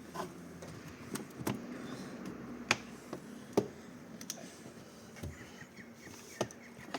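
Sharp, separate plastic clicks and taps from trim clips being squeezed and worked loose by hand, about six in all, with the loudest two near the middle.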